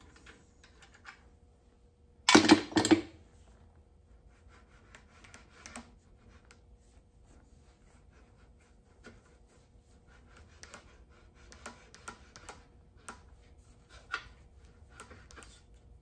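Metal parts of a Kwik-Way portable valve seat cutter being handled on a Model A Ford engine block, with the cutter's motor not running. Two loud metal clanks come about two and a half seconds in, then scattered light clicks and taps as the cutter is worked loose and lifted.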